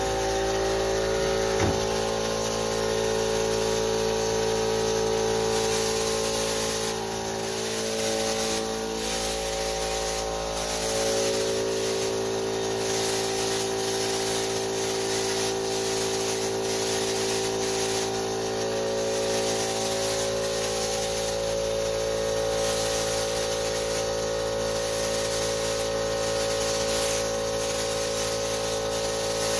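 Siphon-feed air spray gun hissing in repeated bursts as grey paint is sprayed onto a wooden kitchen cabinet, the spraying starting about five seconds in, over a steady motor drone.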